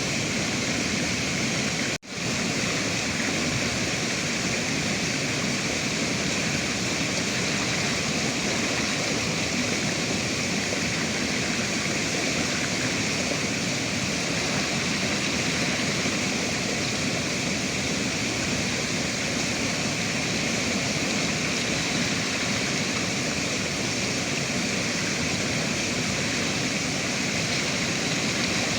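River water rushing steadily, an even wash of noise. It cuts out for an instant about two seconds in.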